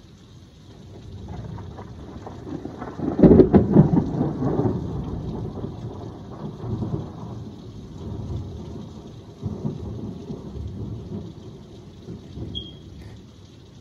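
Thunder rolling over steady heavy rain: the rumble builds over the first seconds, breaks into a loud crack about three seconds in, then rolls on in fading swells.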